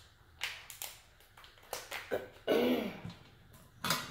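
Kitchen shears snipping through a king crab leg's shell, giving several sharp cracks, the loudest near the end. A short vocal sound from the eater comes in the middle.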